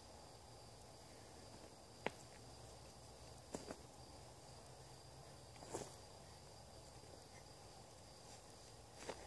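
Near silence in woodland: a faint steady hiss with a thin high steady tone, broken by four soft brief clicks and rustles, about two, three and a half, six and nine seconds in, from feet shifting on the leaf-littered forest floor.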